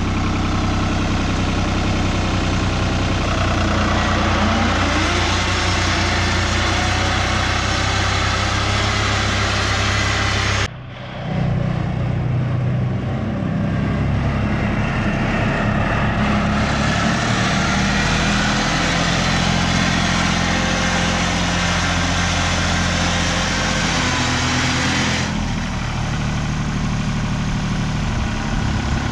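A motor vehicle engine idling steadily. The sound breaks off abruptly about ten seconds in and changes character again about 25 seconds in.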